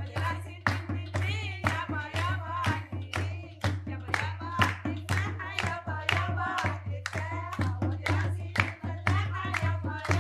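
A woman singing a folk party song over a hand drum beating a quick, even rhythm, with people clapping along in time. A steady low hum runs underneath.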